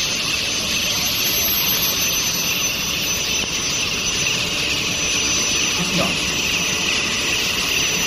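Steady machine noise of a running long-bar induction hardening and tempering line: a loud even hiss with a thin, high, steady tone over it.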